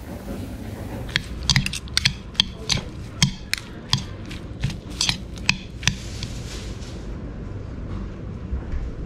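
Metal spoon clinking and scraping against a ceramic bowl as rice and toppings are stirred together: a quick run of about a dozen sharp clinks over some five seconds, then it stops, over a steady low background rumble.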